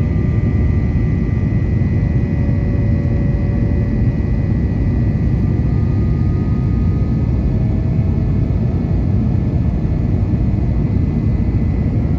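Cabin noise inside an Airbus A321 climbing after take-off: the jet engines and airflow make a steady, loud low rumble, with a faint steady whine over it.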